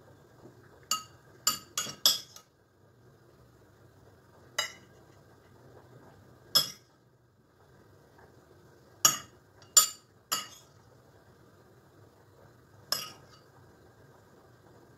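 A metal spoon clinking against ceramic dishware about ten times at irregular intervals, some in quick clusters, as filling is spooned into pasta tubes.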